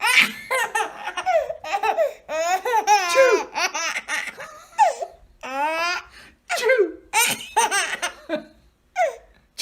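A baby laughing, high-pitched, in a long run of short laughs broken by brief pauses.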